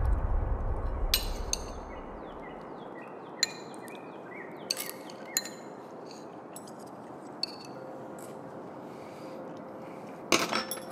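Chopsticks and glassware clinking against dishes at a meal table: scattered light clicks and clinks over a faint steady room hiss, with a denser run of clatter near the end.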